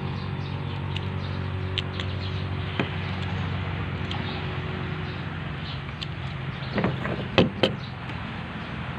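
Light clicks and a short cluster of sharper knocks about seven seconds in, from bougainvillea stem cuttings being handled and trimmed against a plastic tabletop, over a steady low hum.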